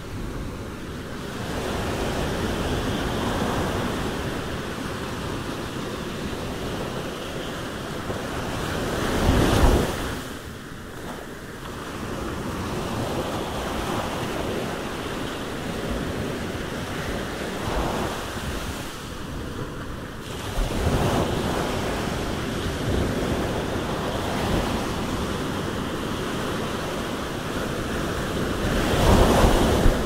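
Surf on a sandy beach: a continuous wash of waves that swells to a louder breaking surge about every ten seconds, three times.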